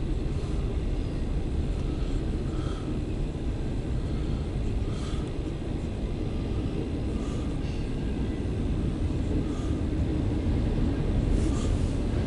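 CSX intermodal freight train rolling past, a steady rumble of wheels on rail with a few faint short squeals.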